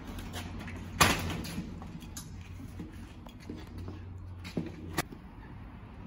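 A sharp knock about a second in, followed by a few lighter knocks and clicks, over a low steady hum that drops away after about five seconds.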